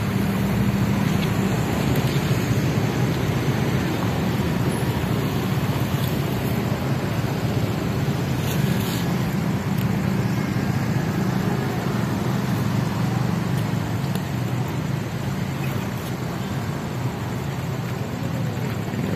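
Steady road traffic, mostly motorcycles, passing close by, with a continuous drone of engines.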